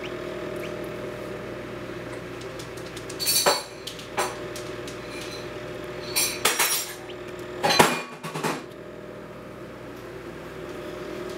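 Hard objects clinking and clattering four times, like dishes or glassware being handled, over a steady low electrical hum.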